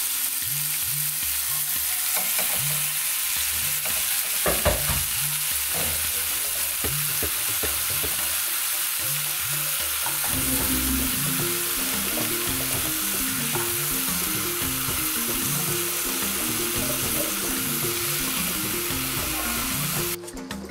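Whole fish sizzling as it fries in oil in a frying pan, with a few knocks and soft drops as sliced vegetables go in. The sizzle cuts off suddenly near the end. Background music with a bass line plays underneath.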